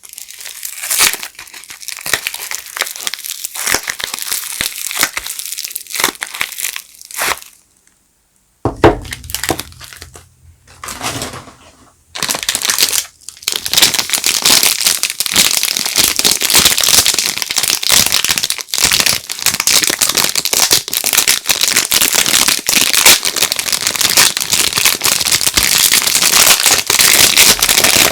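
Soap wrapper crinkling as bars of soap are unpacked by hand: scattered crackles at first, then steady, dense crinkling through the second half. A single sharp thump comes about a third of the way in.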